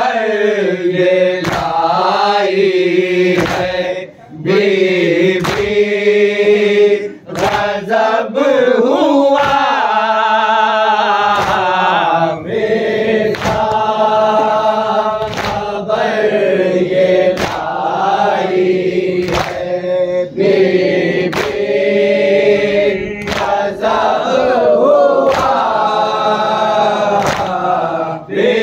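Men's voices chanting an Urdu noha, a Muharram lament for Husain, led by a reciter with the group joining in. A sharp stroke about every two seconds keeps time: hands beating on chests (matam).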